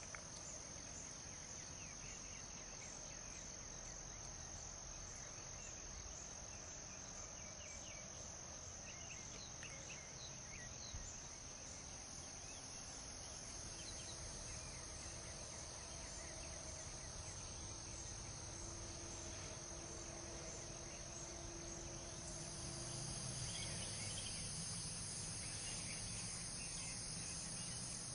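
Crickets chirping in a steady, continuous high trill over a low background hum that grows a little louder near the end.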